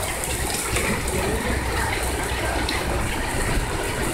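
Heavy rain pouring down steadily, an even hiss of rainfall on wet pavement.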